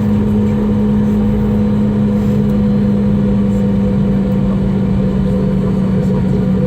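Steady drone of a Boeing 717's tail-mounted Rolls-Royce BR715 turbofans heard inside the passenger cabin: a constant low hum over a loud rushing noise bed.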